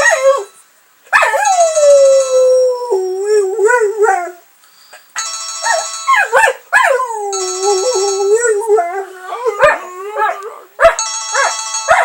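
Boxer puppy howling at a cell phone ringtone: several long howls that slide down in pitch, one after another, while the ringtone plays in bursts.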